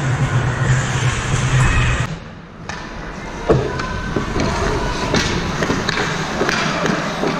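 Ice hockey play close to the net: skates scraping the ice and repeated sharp clacks of sticks and puck, the loudest knock about three and a half seconds in. A steady low hum underlies the first two seconds, then the sound dips briefly.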